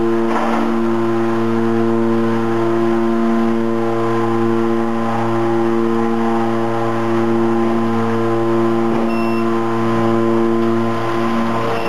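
Automatic square-bottom bag making machine running: a loud, steady hum of constant pitch, with a short rush of noise about half a second in.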